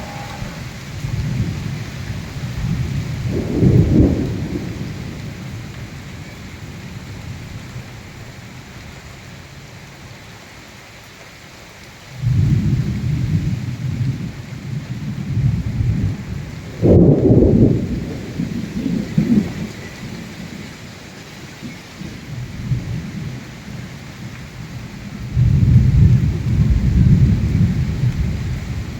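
Steady heavy rain of a cyclone, with deep rumbles that swell and fade several times, the loudest starting suddenly a little past halfway.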